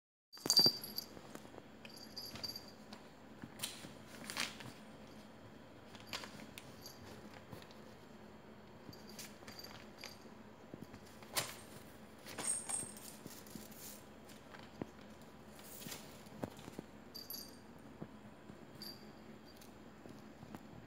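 Basenji puppy playing with a toy on a rug: scattered knocks, taps and scuffles, the sharpest about half a second in, with the metal tag on its collar giving a light jingle now and then.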